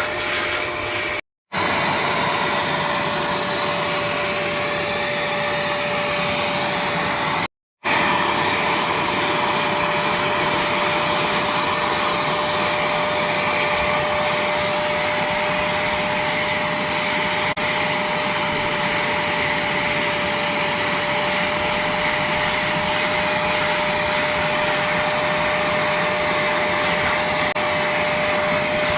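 Bissell ProHeat 2X carpet cleaner running steadily, its suction motor giving a loud even rush with a steady whine over it. The sound cuts off for a split second twice, about a second in and again near eight seconds.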